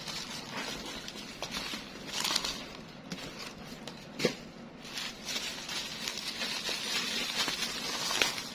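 Bubble wrap crinkling and rustling as it is handled and unwrapped from a small packed box, with a sharper click about four seconds in.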